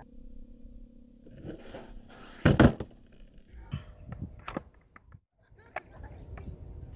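Skateboard clacking on asphalt: a loud double clack about two and a half seconds in, then several lighter clicks as the board is shifted and stepped on.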